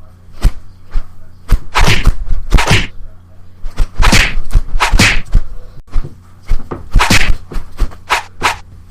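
An irregular run of sharp whacks and short noisy swishes, several a second in places, over a steady low hum.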